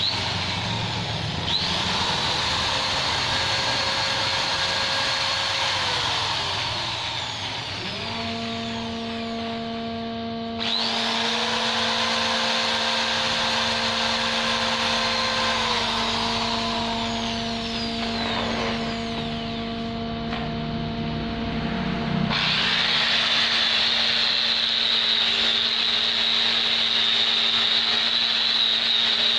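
Electric concrete drill motor running in several bursts, its whine rising as it spins up and falling as it winds down, with a steadier, higher whine near the end.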